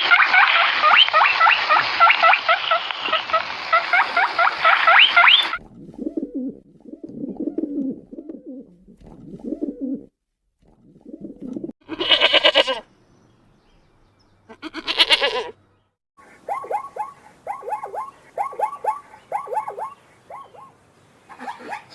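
A string of different animal calls, one after another: a dense chorus of bird chirps for the first five seconds or so, then a few low calls, two short loud calls, and a run of short repeated calls near the end.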